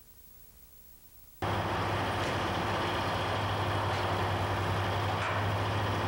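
Near silence, then about a second and a half in, the heavy engine of construction machinery cuts in abruptly and runs steadily with a low hum.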